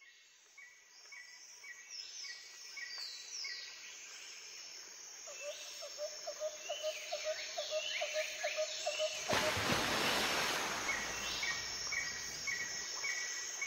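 Background nature-ambience track that fades in from silence: rapidly repeated chirping calls and short falling whistles, with a loud rush of noise about nine seconds in that lasts a couple of seconds.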